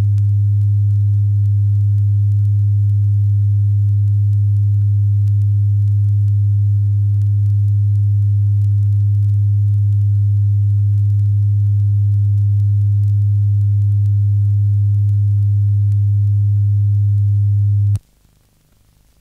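Steady 100 Hz test tone from a 50-year-old calibration tape played on a Sony TC-350 reel-to-reel deck, the low-frequency tone used to check that the speakers are wired in phase. It cuts off suddenly near the end, leaving faint tape hiss.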